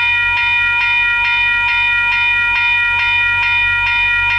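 Railroad level-crossing bell ringing loudly and steadily, with about two strikes a second, warning that a train is approaching.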